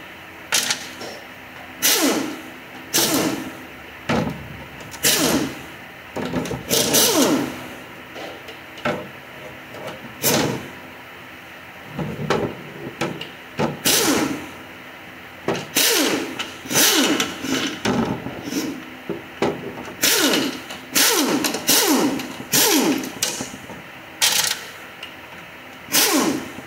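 Cordless ratchet whirring in short bursts, roughly one a second, each one winding down in pitch, as it backs out bolts on a Nissan RE0F10E (JF017E) CVT transmission.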